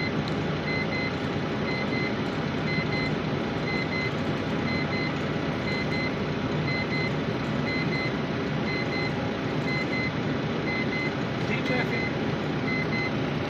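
Volvo FH12's 12-litre diesel engine idling steadily at about 635 rpm, heard from inside the cab, with a short high beep repeating roughly twice a second.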